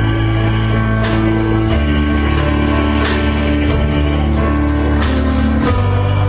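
Worship-song music with a steady beat: long held bass notes and chords change every second or two under plucked guitar, and there is little or no singing in this stretch.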